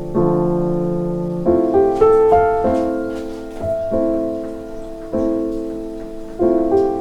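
Background piano music: slow, gentle notes and chords, each struck and left to fade.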